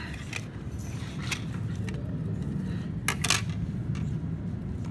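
Plastic LEGO bricks clicking and clattering as a small LEGO model is handled: a few scattered clicks, with a louder cluster about three seconds in, over a low steady rumble.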